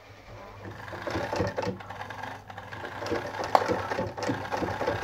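Vintage Anker RZ sewing machine, a heavy-duty German model, started by hand at the handwheel and stitching through eight layers of denim. Its clatter builds over the first second and then runs at a steady, rapid rhythm, with one sharp click about three and a half seconds in.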